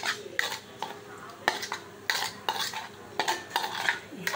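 A spoon scraping and knocking against a plastic bowl as chopped vegetables are stirred and mixed, in an irregular run of about two or three strokes a second.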